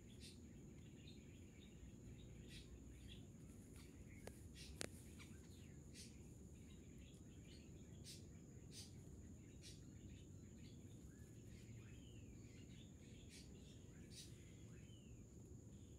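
Faint outdoor ambience: a steady high insect buzz with scattered short bird chirps over a low rumble. Two sharp clicks come between four and five seconds in.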